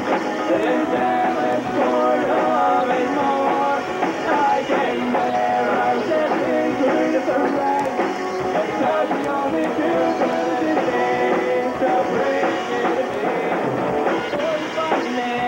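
Live rock band playing: strummed acoustic guitars over a drum kit, at a steady level.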